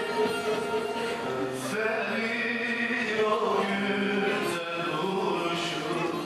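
Male voice singing a Turkish folk song in long held, bending phrases, accompanied by a bağlama (long-necked saz).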